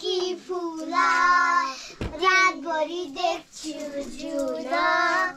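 A child singing, with long held notes; a single dull thump about two seconds in.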